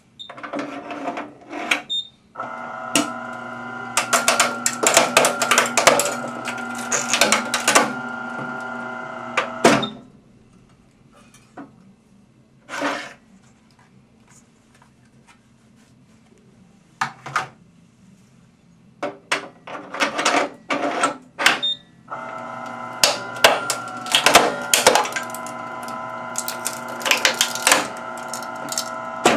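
Proton PPD-2 hard drive destroyer running twice, each cycle a steady mechanical hum of about seven seconds, with sharp cracks and snaps as it bends a hard drive. Between the two cycles there are scattered clicks and knocks of drives being handled in the chamber.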